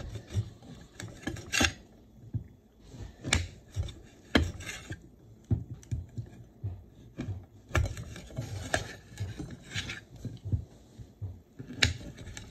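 Knife slicing Chinese sausage on a plate: slow, irregular clicks as the blade meets the plate, with light scraping between cuts.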